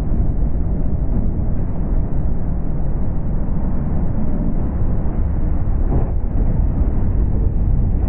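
A 14 ft jon boat running fast under its 25 hp Mercury outboard: heavy wind buffeting on the microphone mixed with the rush of water and spray along the hull. It is a steady, loud rumble with no clear engine note.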